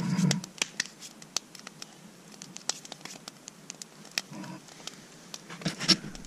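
Wood fire of long logs crackling, with frequent sharp, irregular pops. A brief low rustle, like handling noise, comes at the very start and again just before the end.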